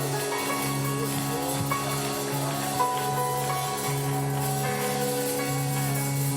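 Slow church worship music: long held chords with a melody line moving over them.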